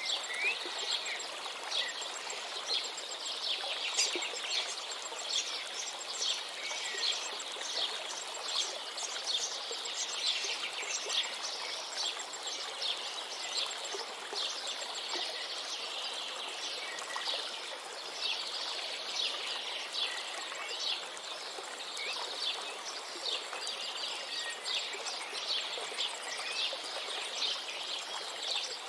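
Many birds chirping and trilling over the steady rush of a river.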